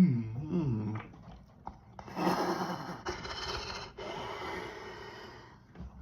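A deep, low burp from a man full of carbonated Mountain Dew, lasting about a second, followed from about two seconds in by loud, rushing breaths for several seconds.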